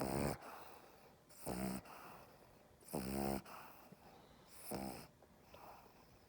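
A dog snoring while held in someone's arms, a snore the owner calls an inverted reverse snore. There are four short pitched snorts, about one every one and a half seconds.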